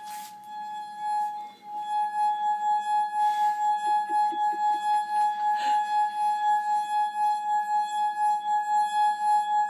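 Empty beer glass singing as a saliva-wetted finger rubs round its rim: one steady, high ringing tone that pulses about two or three times a second. It catches briefly, breaks off, then holds steadily from about two seconds in.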